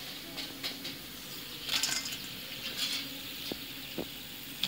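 Crisp deep-fried cauliflower florets (gobi 65) shifting and clinking in a stainless-steel colander: scattered light rattles and dry rustles. The dry rattle shows the florets have fried crisp.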